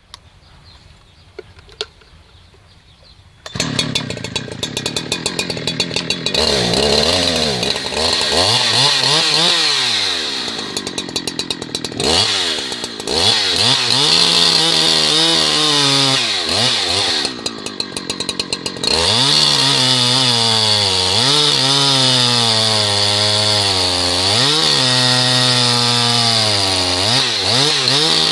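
Husqvarna 365 Special two-stroke chainsaw comes in about three and a half seconds in with a ticking idle, then revs up and down. It is held at high revs with a wavering pitch as it cuts wood, drops to idle briefly about two-thirds of the way through, then cuts again.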